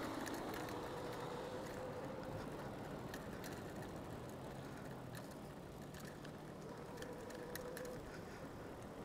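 Quiet seaside outdoor ambience: a faint even wash of wind and sea, with scattered light ticks and two brief faint hums, one early and one near the end.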